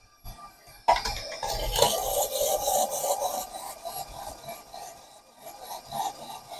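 Carrots being shredded by the rotating drum of a ZACME slicer/shredder attachment on a KitchenAid stand mixer: a rasping grind that starts about a second in and fades off over the second half.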